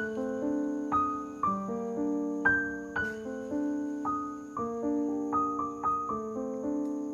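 Background piano music: a slow, gentle melody of single struck notes, about two a second, each dying away over held lower notes.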